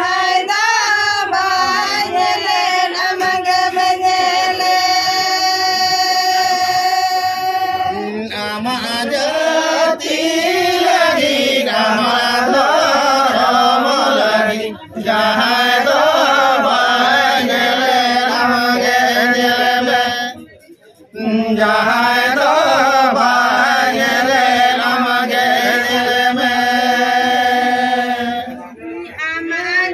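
A mixed group of men and women singing a Santali song together in long, held notes without instruments, with two short pauses, about halfway through and about two-thirds through.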